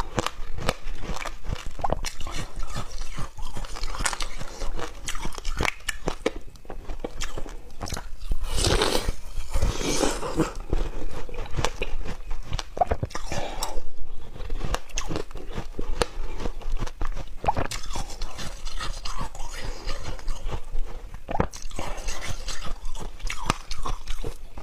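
Shaved ice being bitten and chewed: a dense run of crisp crunches and crackles, with a louder, longer crunch about nine seconds in.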